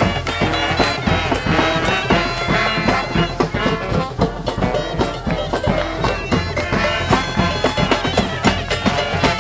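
Street band of brass and reed horns playing a loud tune together, with drum hits keeping the beat.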